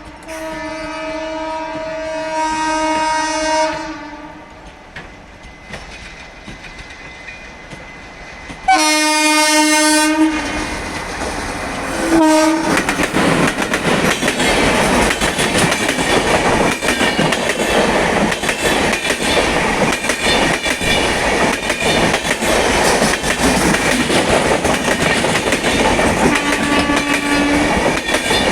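Indian Railways locomotive's twin-tone horn sounding: a long blast, then a second loud blast and a short toot as the train draws near. The train then passes close at speed, its wheels clattering over the rail joints in a steady clickety-clack, with one more brief horn near the end.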